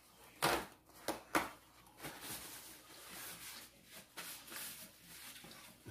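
Paper napkin rustling and crumpling as hands are wiped, with a few short sharp rustles in the first second and a half, then softer, uneven rustling.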